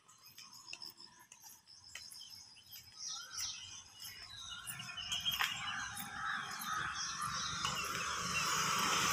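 Several birds chirping and calling, with the noise of an approaching road vehicle building up steadily over the last few seconds.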